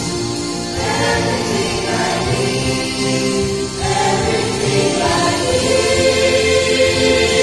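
Mixed church choir of women's and men's voices singing a hymn in harmony, ending on a long held chord near the end.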